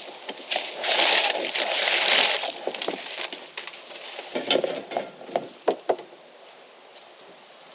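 A band sawmill blade being handled and uncoiled: a rasping scrape of about two seconds, then a handful of sharp metallic clinks and knocks.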